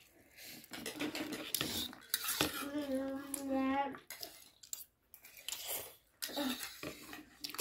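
Cutlery clinking and scraping against plates and bowls as noodles are eaten, in scattered light clicks. About halfway through, a voice holds a steady hum for a second and a half.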